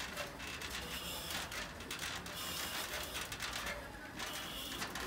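Boots stepping down the rungs of an aluminium extension ladder, the metal ladder rattling with a run of irregular clicks and knocks.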